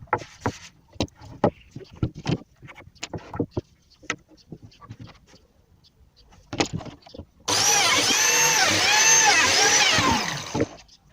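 Scattered knocks and clicks of wood and tools being handled, then a power tool motor running for about three seconds, its pitch rising and falling over and over before it winds down.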